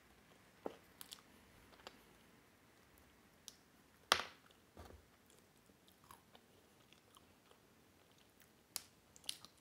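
A person chewing a soft egg cake topped with whipped cream: quiet, wet mouth sounds and lip smacks, with scattered short clicks. The loudest is a sharp click about four seconds in, and a few more come near the end.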